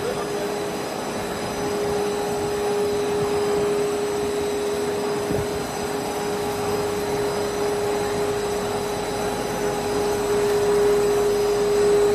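Five-layer cast stretch film line running in production: a steady mechanical drone carrying one constant hum tone, with fainter high-pitched tones above it.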